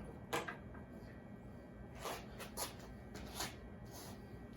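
A few faint clicks and scrapes of hands working a snowblower wheel and its washer along the keyed axle.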